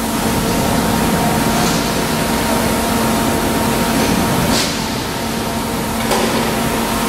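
Paddle feed mixer running loaded with feed meal: a steady machine hum with a constant low tone over a dense noise, and one short sharp sound a little after the middle.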